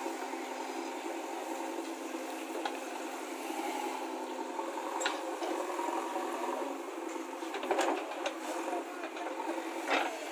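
JCB 3DX backhoe loader's diesel engine running steadily as the backhoe digs and swings its bucket of soil, with a few sharp knocks from the bucket and arm scattered through.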